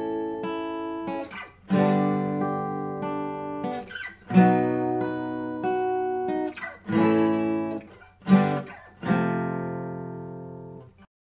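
Music: slow guitar chords struck one at a time, about five in all, each left to ring and die away, the last fading out near the end.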